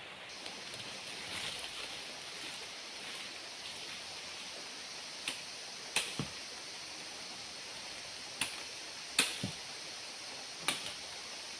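Steady hiss with about seven sharp snaps or knocks in the second half, some in quick pairs.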